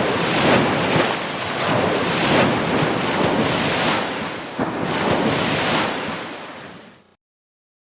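Ocean surf: waves breaking and washing in, swelling and easing every second or two. The sound fades out over about a second and cuts to silence about seven seconds in.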